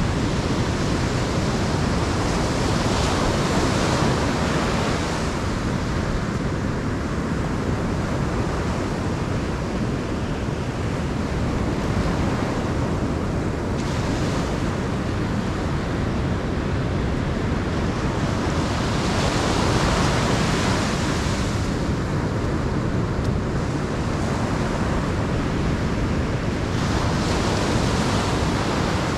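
Ocean surf breaking and washing up a sandy beach, a steady rush that swells louder every several seconds as waves come in.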